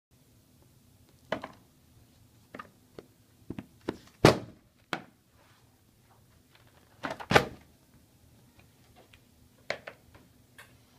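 Heavy hardcover books knocking and thudding on a table as they are set down and opened: a string of separate knocks, the two loudest about four and seven seconds in.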